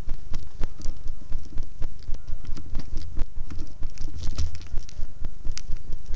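Quick footsteps through dry grass and brush, heard from a helmet-mounted camera, with irregular knocks and rattles of gear and a constant low rumble from the camera being jostled.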